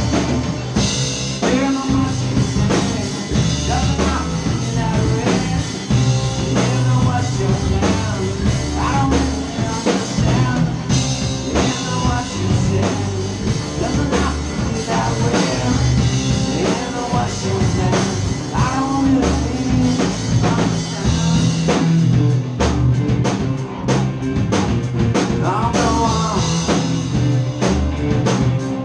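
Rock band playing live in a small rehearsal room: electric guitars, bass guitar and drum kit. Near the end the steady cymbal wash gives way to separate sharp drum and cymbal hits.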